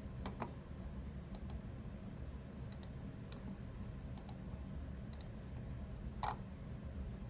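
Faint, sparse clicks, several coming in quick pairs, over a low steady hum.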